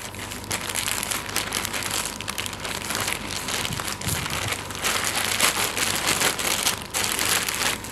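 Thin plastic courier mailer bag being torn and pulled open by hand, with continuous crinkling and rustling of the plastic.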